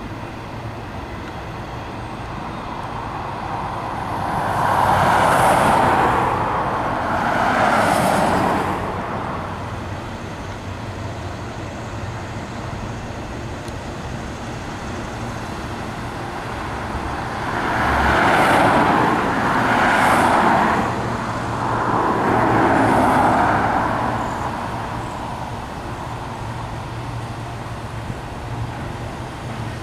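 Road traffic: cars passing by one after another, each a rise and fall of tyre and engine noise lasting a couple of seconds, two close together and then three more about ten seconds later, over a steady low hum.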